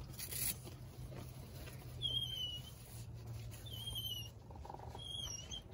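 Wood duck squeal calls, three wavering high squeals about a second and a half apart, over a low steady rumble.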